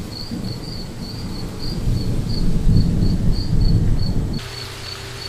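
A cricket chirping in an even, repeated rhythm over a low rumble of thunder with rain. The rumble swells in the middle and cuts off suddenly about four seconds in, leaving the chirping over a faint steady hum.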